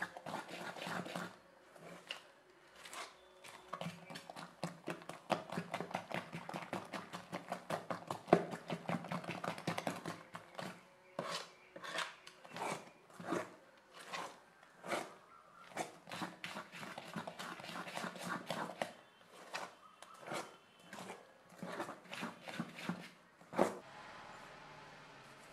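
A hand mixing thick, coarse adai batter in a metal bowl: repeated wet squelching strokes, tightly packed at first and then about one a second, with a last louder stroke near the end.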